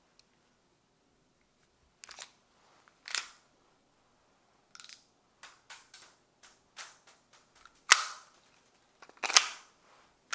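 Tokyo Marui Glock 17 Gen5 gas blowback airsoft pistol firing single, spaced-out shots, each a sharp crack of the gas discharge and slide cycling. The loudest shots come about two, three, eight and nine seconds in and at the very end, with a run of lighter clicks between them.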